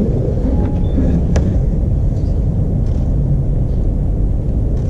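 Steady low background rumble, with one sharp click about a second and a half in.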